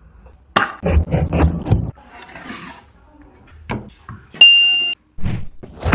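Clicks and soft knocks of whole tomatoes and their cut tops being handled on a wooden board and set down in a pan. Then a loud, high electronic ding lasts about half a second and cuts off suddenly.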